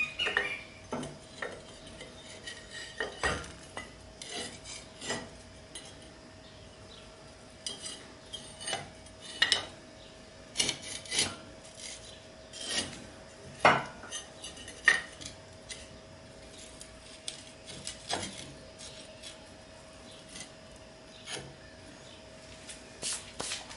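Metal parts being handled by hand: scattered clinks, knocks and scrapes of the electric motor, its pulley and tools against the steel frame, as work begins on getting the pulley off the motor shaft. The loudest knocks come about halfway through, over a faint steady hum.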